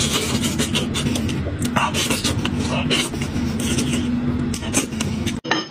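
Close-up eating sounds from a person gnawing braised sheep head: wet chewing, lip smacking and sucking as meat is pulled off the bones, with dense irregular clicks over a steady low hum. The sound breaks off abruptly near the end.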